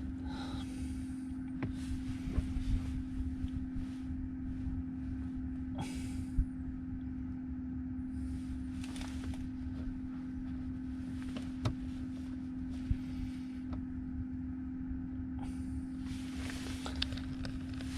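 A steady low electrical hum at one constant pitch with a faint rumble under it, broken by a few light clicks and taps.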